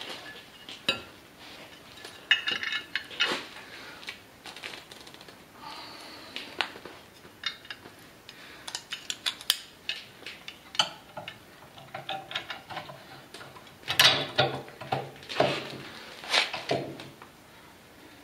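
Handle parts and metal fasteners being handled and fitted to a portable generator's tubular steel frame: irregular clicks, clinks and knocks, with louder clatter about 14 and 16 seconds in.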